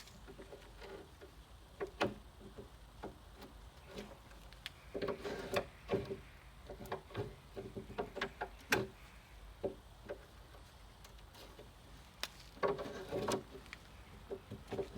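Irregular clicks and knocks of objects being handled and set down, with a few denser clusters of knocks; no steady running machine.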